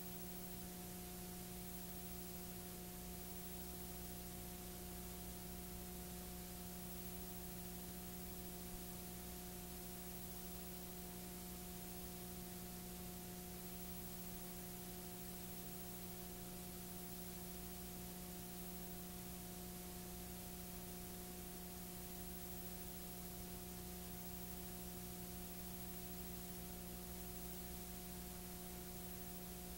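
Steady electrical hum with a constant hiss and no programme sound, typical of a blank stretch of videotape playing back.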